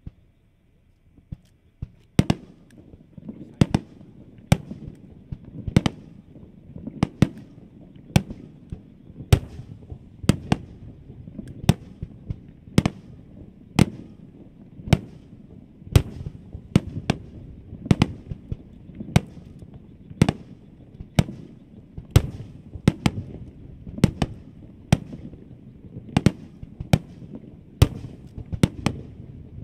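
Aerial fireworks shells bursting one after another, a sharp bang about every half second to a second, over a steady low rumble of echoes. The barrage starts about two seconds in.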